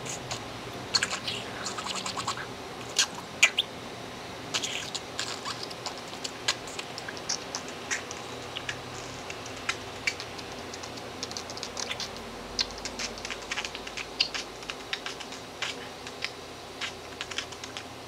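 Budgerigar making a rapid, irregular string of sharp clicks and ticks, several a second, mimicking the beatbox percussion it learned from people beatboxing around it.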